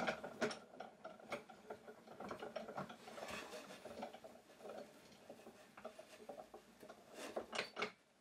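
Metal bench vise being opened and retightened by its sliding bar handle: a string of light clicks and knocks as the board is turned and reseated in the jaws, with a louder cluster of clacks near the end.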